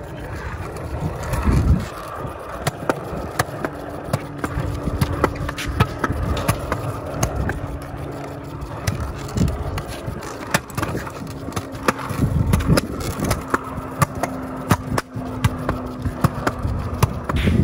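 Kick scooter's small wheels rolling on a concrete sidewalk, a continuous rumble with a steady hum and repeated clicks as the wheels cross the slab joints.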